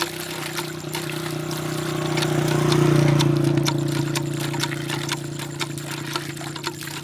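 Water gushing from a hand pump's spout and splashing into a concrete trough, with light knocks from the pump. A passing motorcycle's engine hum swells to its loudest about three seconds in and then fades.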